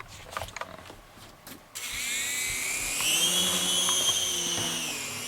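Small caged RC toy helicopter's electric motors and rotors starting up with a high-pitched whine about two seconds in, rising slightly in pitch, holding, then easing off near the end. A few light clicks come before it.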